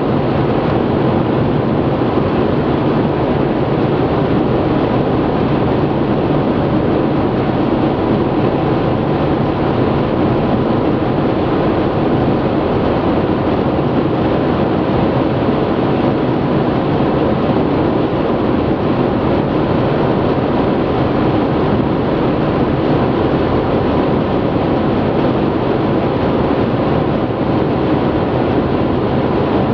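Car cruising at motorway speed, heard from inside the cabin: steady tyre and road noise with a low engine hum.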